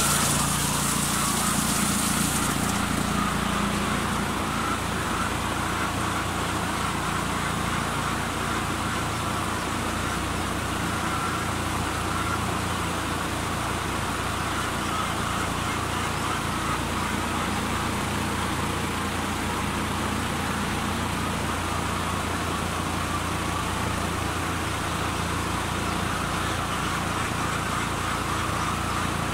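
Large wire-guarded exhaust fan running steadily with a constant hum and rush of air. For the first couple of seconds a hose's water spray hisses against the fan guard, then stops.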